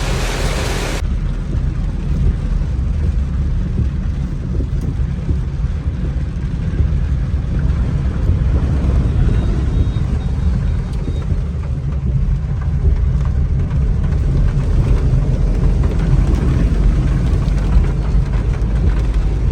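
Steady low rumble of a vehicle on the move, heard from inside it.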